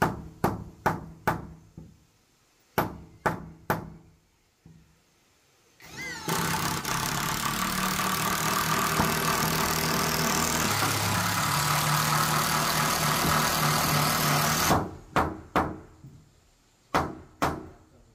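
Nail gun shots into wooden floorboards, sharp cracks several to a second in short runs. About six seconds in a motor starts and runs steadily for about nine seconds, then cuts off sharply, and the shots resume.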